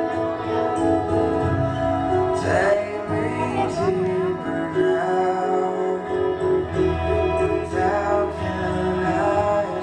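Music: a song with singing over sustained instrumental backing.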